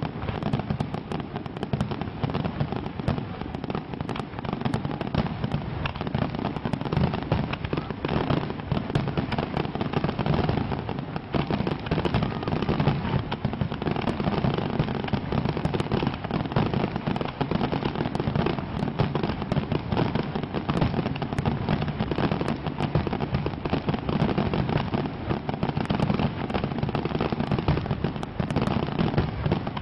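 Fireworks display going off without a break: a dense, continuous stream of bangs and crackling at a steady level.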